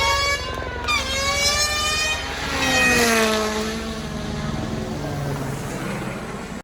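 Rally car engine revving hard and climbing in pitch, with a gear change about a second in. Its pitch then falls and the sound fades as the car passes and moves away.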